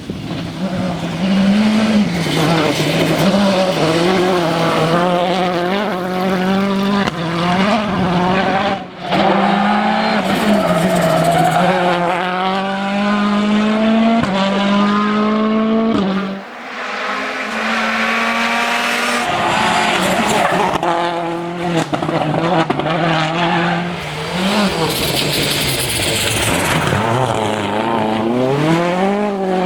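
Citroën DS3 WRC rally cars' 1.6-litre turbocharged four-cylinder engines revving hard, the pitch climbing and dropping again and again through gear changes. Several car passes follow one after another, with short breaks about nine and sixteen seconds in.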